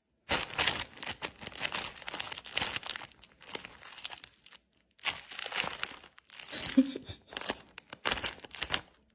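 Clear plastic bag crinkling and rustling as a kitten wriggles inside it, in uneven bursts with a short pause about halfway through.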